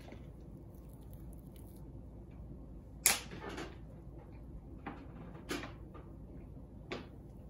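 A spoon tapping and scraping as pizzelle batter is dropped onto an open pizzelle iron: a few separate light clicks, the sharpest about three seconds in, over a faint steady hum.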